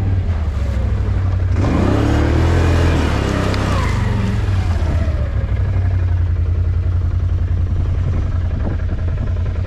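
Four-wheeler (ATV) engine running steadily while riding, revving up briefly about two seconds in.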